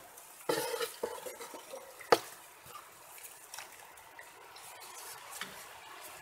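A few light knocks and clinks of handling. There is a cluster about half a second in, one sharp click just after two seconds, and fainter ticks after that, over a faint steady hiss.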